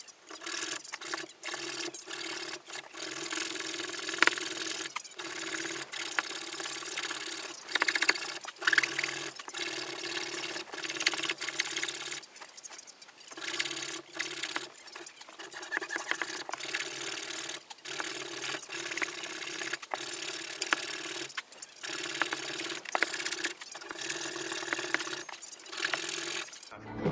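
Pull saw cutting by hand across a laminated softwood boat frame at the chine notch: a steady run of sawing strokes, about one a second, with short pauses between them.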